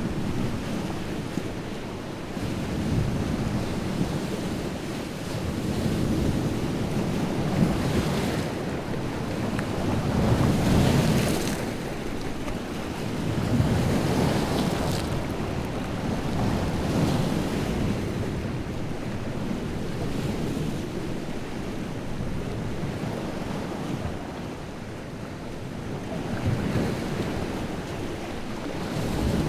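Wind-driven lake waves breaking on the shore, the surf swelling and falling every few seconds with splashing crests. Wind gusts rumble on the microphone.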